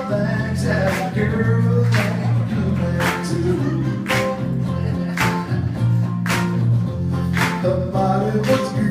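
Live rock band playing a song, with a singer's voice over a heavy bass line and a drum hit about once a second.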